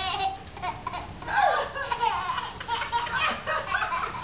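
Toddler laughing in repeated bursts, with one long laugh falling in pitch about a second and a half in.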